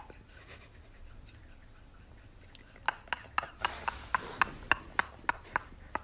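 Faint rubbing against the phone's microphone, then from about halfway a run of short breathy pulses, about three to four a second: two men's stifled, mostly voiceless laughter close to the microphone.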